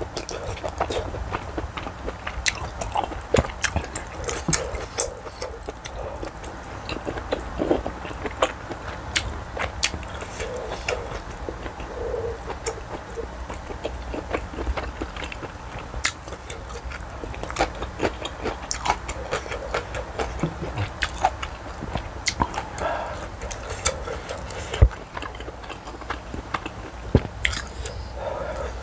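A person chewing spicy tteokbokki: chewy rice cakes and glass noodles, with many short sharp mouth clicks and smacks.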